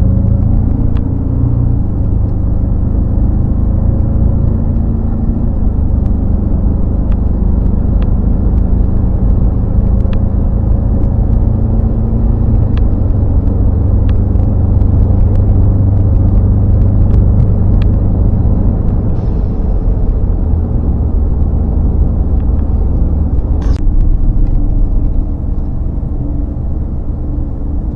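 A vehicle driving on the road: a steady low rumble of engine and tyres, with a few faint clicks.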